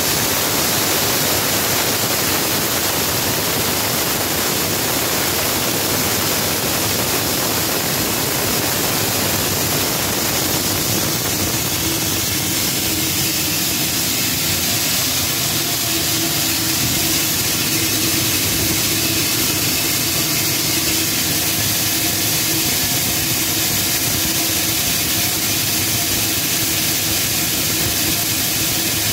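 Pulverizer-type atta chakki grain mill running steadily while cracking maize, a loud even rushing machine noise. A steady low hum joins about twelve seconds in.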